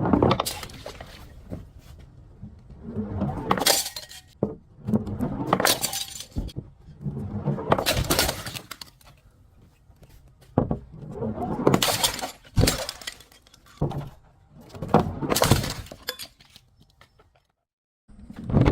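Glass bottles breaking and crunching in about seven separate bursts, each lasting up to a couple of seconds, with clinking of glass pieces between them.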